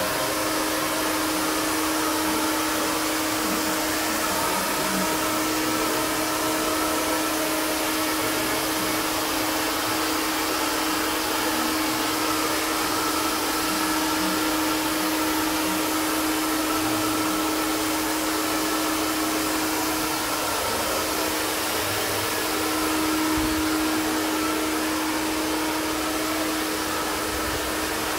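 Handheld iTeraCare terahertz health blower running steadily: a continuous rush of blown air with a steady hum under it, like a hair dryer.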